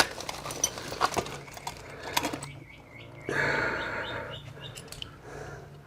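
Rustling and small clicks as a bag of screws and hardware is handled and rummaged through, with a louder rustle about three seconds in, over a faint steady hum.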